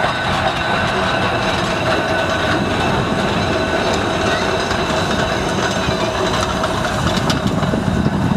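Heritage Balloon double-decker tram running past close by, its wheels rumbling and clicking over the rails, with a steady high whine above the rumble.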